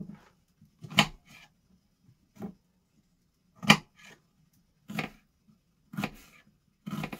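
Kitchen knife slicing an onion on a wooden cutting board: six separate cutting strokes, about one a second.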